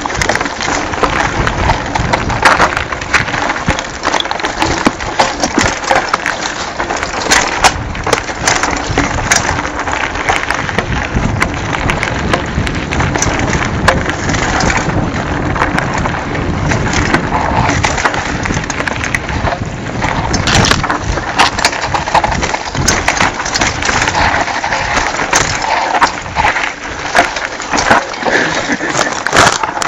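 Mountain bike riding down a rough dirt trail: a steady crunch of tyres on dirt and gravel, with constant rattling clicks and knocks from the bike and camera jolting over bumps.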